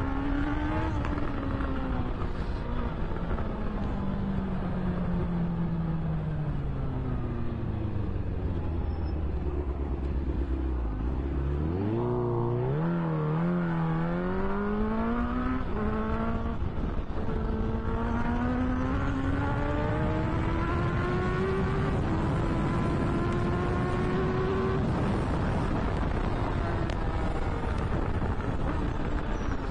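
Sport motorcycle engine heard from the rider's seat over constant wind rush. The revs fall slowly for the first ten seconds or so, then climb in several quick steps as the bike accelerates up through the gears. A long steady rise follows, and the engine eases off near the end.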